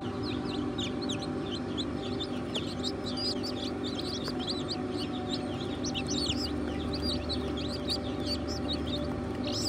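Newly hatched Black Copper Marans chicks peeping nonstop, many quick high chirps overlapping, over a steady hum.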